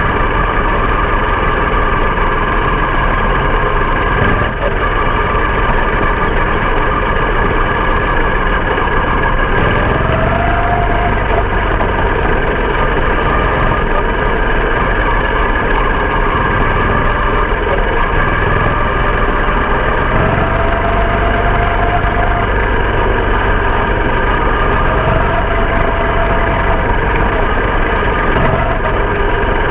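Small open-wheel race car's engine running steadily under way, picked up by a microphone mounted on the car, with a short rising tone a few times.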